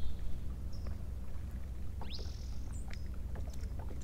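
Open-water boat ambience: a steady low rumble, with short high bird chirps from the shoreline and one rising whistled call about two seconds in.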